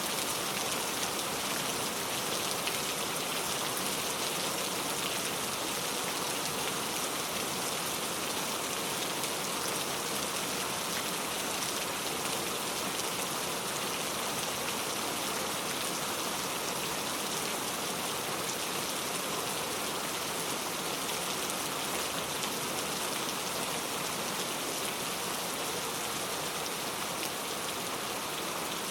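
Heavy rain falling steadily, a dense even patter of drops tapping on a leaf-covered road.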